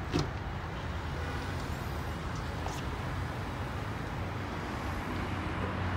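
Steady hum of car engines and road traffic, with one short knock just after the start.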